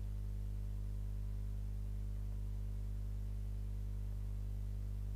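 Steady low hum, unchanging, with no other sound.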